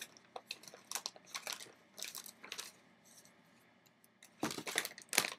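Padded paper mailing envelope being handled and its contents pulled out, the paper crinkling and rustling in short irregular spells, quieter in the middle and loudest near the end.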